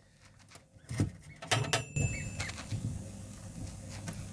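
A microphone pressed against a duck egg in an incubator picks up a few sharp clicks and knocks from about a second in, then a faint short peep from the duckling inside the pipped egg, over a low steady hum.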